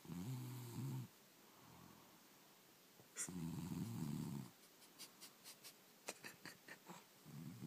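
Loud rumbling snores from a sleeper wearing anti-snoring strips that are not stopping the snoring: two long snores about three seconds apart with a faint breath between, and another beginning near the end. A run of small faint clicks comes between them.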